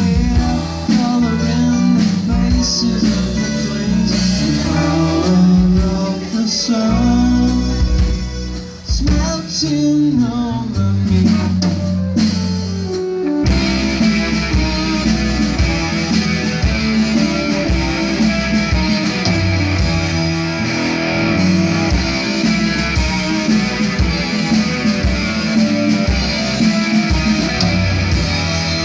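Live psychedelic indie rock band playing through a PA: electric guitar, bass, drums and keyboard. About halfway through, after a falling pitch slide, the full band comes in louder and denser with cymbals.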